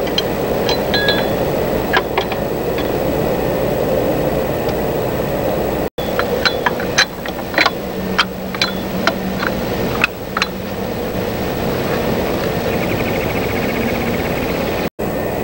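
Light metallic clinks and taps of a steel camshaft pulley holder being handled and set against the engine: a few near the start, then a quicker run of about a dozen about six to ten seconds in. Under them a steady background hiss and hum, with the sound dropping out for an instant twice.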